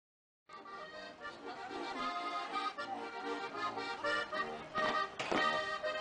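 Instrumental music, starting abruptly about half a second in.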